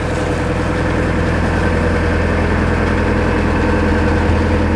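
Narrowboat's diesel engine running steadily at low revs while cruising, a constant low drone.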